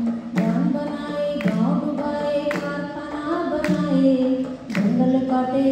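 A voice singing a melody in held notes, accompanied by a hand drum struck about once a second.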